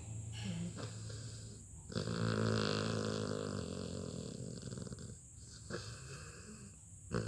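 Sleeping Labrador puppy snoring: one long, loud, buzzy snore starts about two seconds in and lasts about three seconds, with quieter breathing after it. The next snore begins right at the end.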